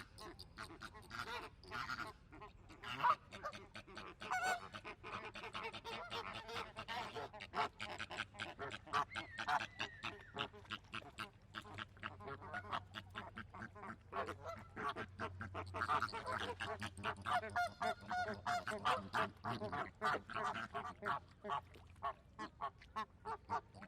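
A flock of flamingos calling: many short honking calls overlapping, several a second, without a break.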